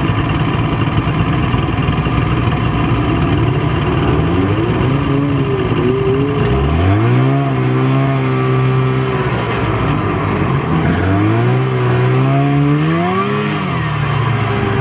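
Snowmobile engine running at a steady rumble, then about six seconds in the throttle opens and the engine pitch climbs as it pulls away. It eases off, climbs again, and drops back near the end.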